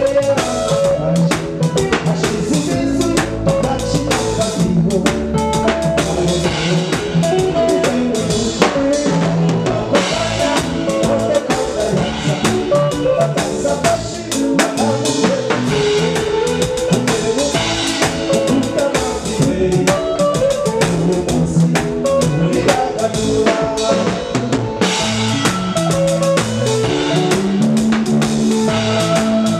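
A live band plays a song with a steady drum-kit beat, an electric bass line and a keyboard.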